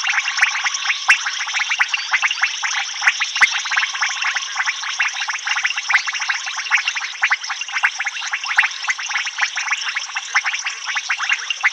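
Dense frog chorus of many rapid, overlapping clicking calls.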